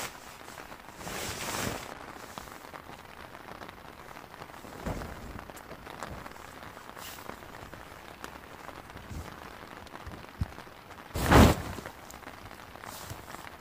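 Light rain falling in a steady hiss, with tent fabric and poles being handled in a few short rustling bursts as a dome tent is put up; the loudest burst comes about eleven seconds in.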